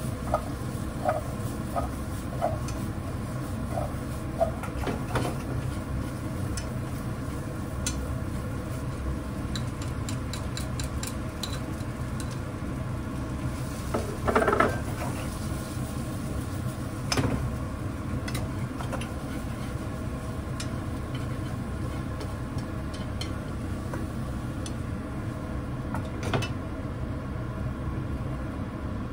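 Scattered clinks and knocks of dishes and utensils over a steady low hum, with a louder clatter about halfway through.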